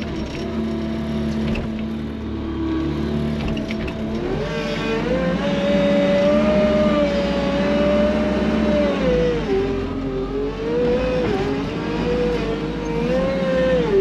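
Skid-steer loader engine and hydraulics, heard from inside the cab, working while the bucket is tipped to shake out straw. The engine pitch climbs about four seconds in, holds high, then drops and wavers up and down.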